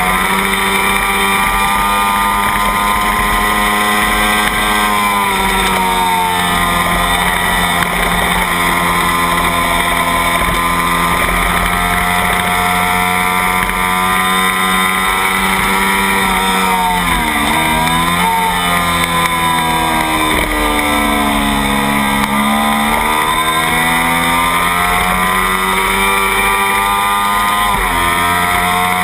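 Kawasaki Ninja parallel-twin race engine heard from on board, held at high revs. Its pitch falls as the rider rolls off into corners, dips sharply and climbs again a little past halfway, sags and builds back up through a long bend, then shifts once more near the end.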